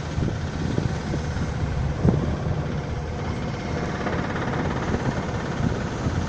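Wind buffeting the microphone in a low, gusty rumble over the rush of the sea along the hull of a sailing ship under way.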